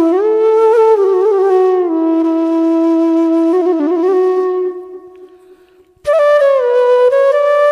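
Background music carried by a solo flute: a slow melody of held notes with slides between them. It fades away about five seconds in, and a new phrase starts about a second later.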